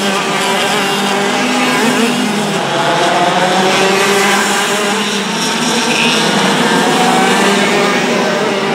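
Several racing kart engines running at high revs, their pitches rising and falling as the karts lap the circuit.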